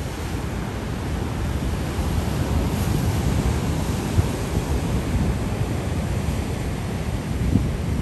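Ocean surf breaking and washing over shoreline rocks, a continuous rushing that swells a little about two seconds in, with wind buffeting the microphone and giving two brief thumps, one about four seconds in and one near the end.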